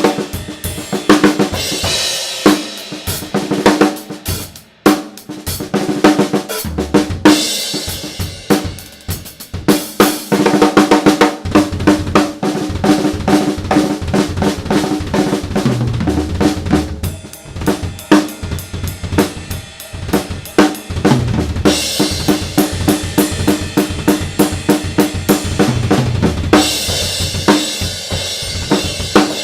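Drum kit played in a groove and fills, led by a Chicago Custom Percussion snare drum with a fat snare crack, a little ring and plenty of body, its heads at medium tension with the bottom a bit higher than the top. Bass drum, hi-hat and cymbals play along, with cymbal wash swelling in several passages.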